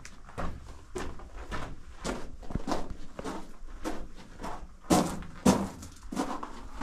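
Footsteps crunching on the loose gravel and rock floor of a mine tunnel, about two steps a second, two of them louder about five seconds in.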